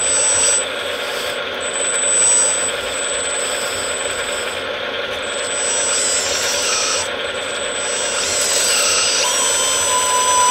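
Electric drive and hydraulics of a 1:14-scale RC Bobcat T770 tracked loader running: a steady mechanical whirr with a thin high whine, and tones that shift in pitch in the last couple of seconds as the loader works.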